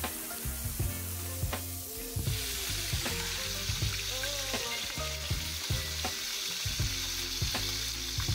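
Chicken pieces frying in hot olive oil and butter in a skillet, a steady sizzle that grows louder about two seconds in. Background music with a steady beat and bass line plays underneath.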